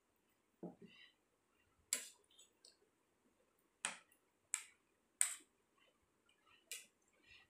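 Metal spoons and forks clinking and scraping on plates of rice, about five sharp clinks scattered through, with a softer knock under a second in.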